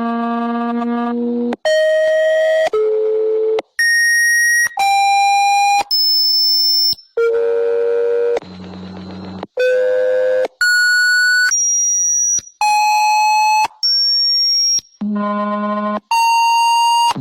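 Synthesized mock emergency-alert alarm tones: a rapid series of about fifteen buzzy steady tones, each roughly a second long and each at a different pitch, with thin sweeping glides laid over some of them in the middle.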